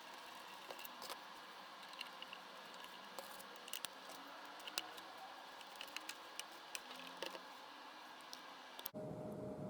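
Scattered light clicks and taps of small parts and tools being handled while the circular saw is worked on, about a dozen irregular ticks over a faint steady hiss. Near the end the sound cuts off abruptly and a louder steady hum with a single held tone takes over.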